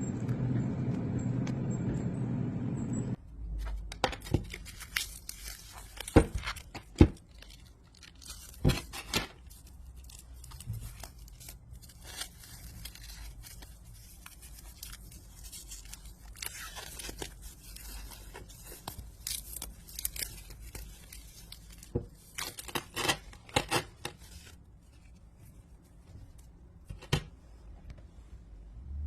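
A steady low hum for about three seconds, then scattered sharp clicks and knocks with scraping and tearing noises between them: close-up handling sounds.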